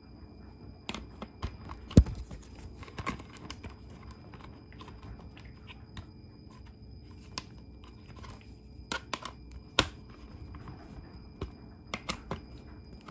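Hands handling decal sheets and plastic bodywork: scattered clicks and taps, some in quick clusters, with one sharp knock about two seconds in the loudest.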